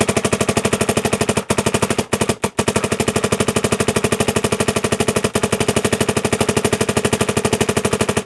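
Dye MXR electronic paintball marker firing a long rapid string of shots on compressed air, more than ten shots a second, with a few very short breaks about two seconds in.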